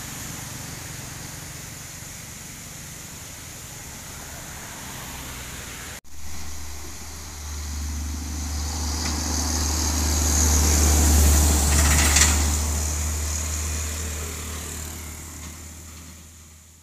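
Diesel tanker trucks on the road. At first a truck's engine and tyre noise are heard faintly as it moves off. About six seconds in the sound cuts abruptly to a closer fuel tanker truck, whose low engine rumble and tyre hiss swell as it approaches, peak with a brief sharp noise as it passes, then fade away.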